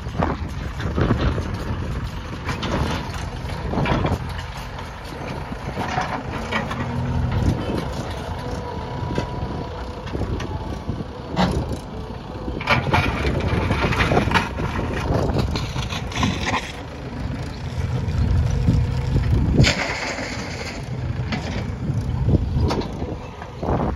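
Diesel engine of a JCB backhoe loader running while it works, with short knocks and clanks cutting in now and then.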